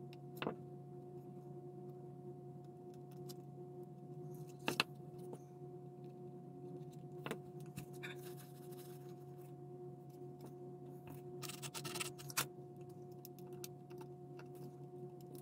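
Quiet handling of small plastic model-car parts on a workbench: a few sharp light clicks and taps, with a tissue rustling about halfway through. A steady low hum runs underneath.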